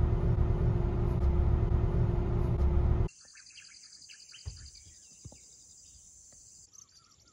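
Car cabin noise: a loud low rumble with a steady hum, which cuts off abruptly about three seconds in. After that there is a quiet outdoor background of insects trilling steadily, birds chirping, and one soft thump.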